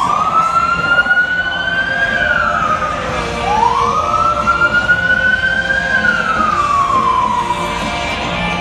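Emergency vehicle siren in a slow wail, its pitch rising and falling through two full cycles, over the rumble of the escorted convoy's engines.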